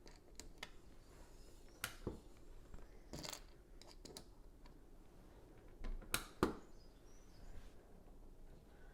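Lego pieces being handled and pressed together: scattered small plastic clicks and taps, a few louder than the rest.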